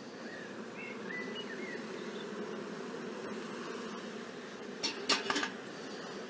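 Honeybees buzzing steadily around an open hive. About five seconds in, a few brief sounds come from handling the bee smoker.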